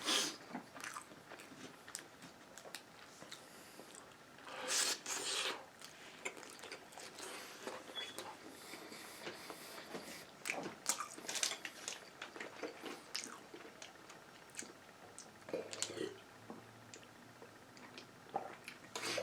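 A person eating up close: quiet chewing with scattered mouth clicks, soft crunches and occasional utensil or container noises, the loudest burst about five seconds in.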